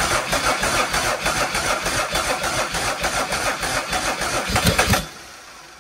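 Mercedes OM603 turbo-diesel straight-six being cranked over by its starter, beating evenly on compression, with a few stronger beats near the end as it almost catches. The cranking stops suddenly about five seconds in without the engine running. It is a hard start on a long-stored engine with freshly fitted glow plugs.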